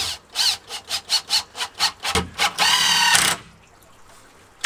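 Cordless drill-driver driving a screw into wood. It goes in short trigger blips, about four a second, then runs steadily for about a second.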